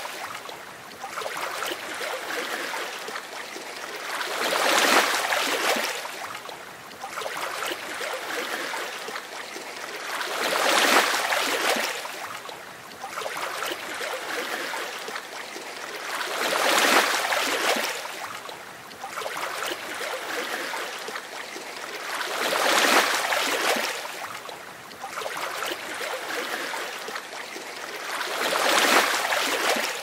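Ocean waves breaking and washing up the shore, the surf swelling to a crash and drawing back about every six seconds.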